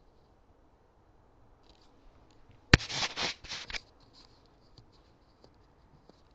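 A single sharp crack from a spring-piston air rifle firing, about three seconds in, followed by about a second of irregular scratchy rustling.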